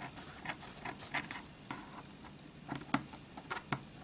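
Scissors snipping through a sheet of paper towel: a run of short, irregular snips with light paper rustling between them.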